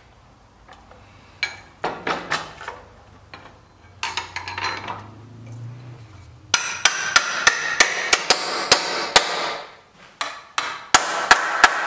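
Steel hammer striking a bolt and iron fitting on a wooden wagon tongue: a run of sharp metallic blows, about three a second, starting just past halfway, with a short pause before the last few. Before the blows come some lighter clinks of iron parts being handled.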